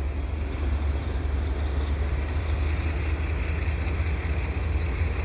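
Slow-moving freight train rolling past: a steady low rumble.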